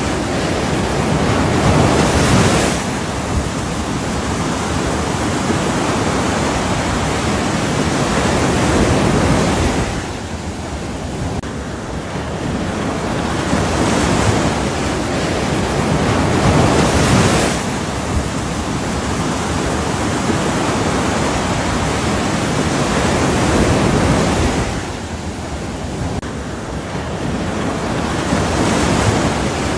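Ocean waves breaking and washing in, a continuous rushing surf that swells and eases every several seconds.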